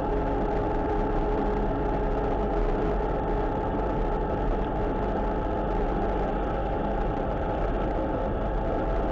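Vehicle engine running steadily at cruising speed, heard on board: a constant drone with a few steady hum tones that holds at an even level.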